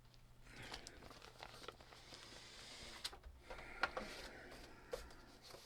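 Rustling, crinkling handling noise with a few sharp clicks: at about three seconds, nearly four seconds and five seconds in.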